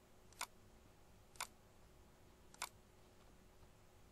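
Three single computer mouse clicks about a second apart, over faint room tone.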